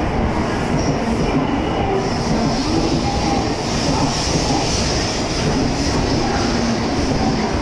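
Tokaido Shinkansen N700-series train pulling in along the platform at low speed: a steady rumble of wheels on rail and running gear, with a faint high whine above it.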